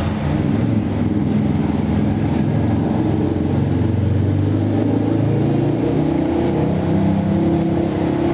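An engine running steadily close by: a loud, low, even drone.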